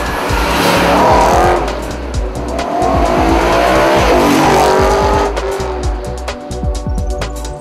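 BMW E92 M3's V8 running through a stainless cat-back mid pipe with the stock muffler, revved up twice, the second rev longer; the exhaust is built to give a small-block-V8-like beat.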